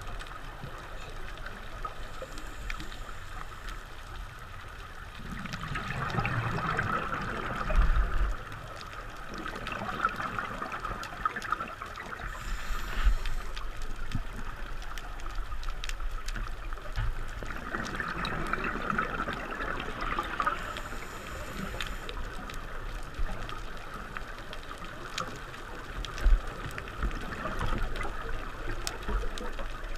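Scuba regulator heard underwater: a diver's exhaled bubbles rush and gurgle in two long surges about twelve seconds apart, over a steady hiss of water, with one sharp knock near the end.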